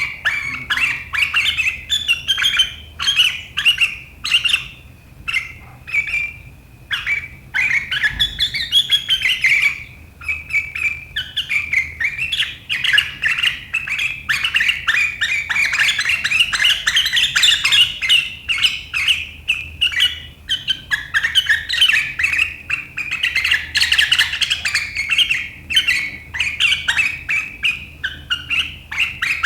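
Sooty-headed bulbul (kutilang) giving a fast run of sharp, chattering 'riwik' calls, nearly continuous, with a brief lull about five to seven seconds in.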